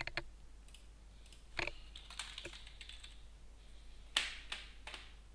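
Computer keyboard being typed on: a handful of separate keystrokes, unevenly spaced, while a short text label is entered.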